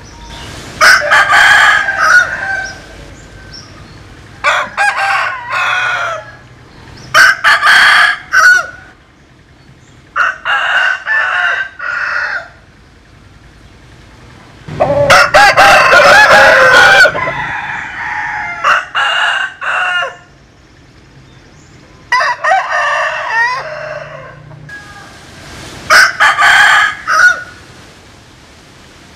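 Roosters crowing one after another, about eight crows spaced a few seconds apart, from Vietnamese-American crossbred 'butterfly' chickens.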